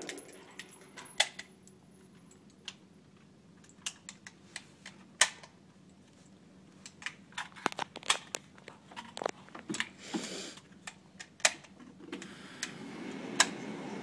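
Handling noise: scattered light clicks and knocks, with two sharper knocks about one and five seconds in and a quick run of them in the middle, as the AR-15 rifle is handled and laid down on the bench. A low steady rush comes up near the end.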